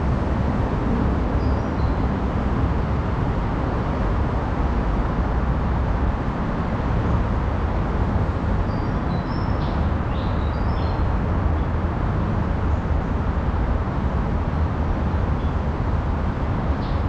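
Steady, even rumble of city road traffic, with a few short high chirps around the middle.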